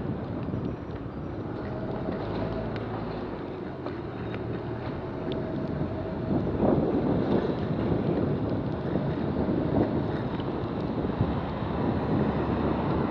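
Wind rushing over the microphone of a camera on a Brompton folding bicycle riding along a wet street, with the hiss of the wet road and the low, steady running of a lorry's engine just ahead.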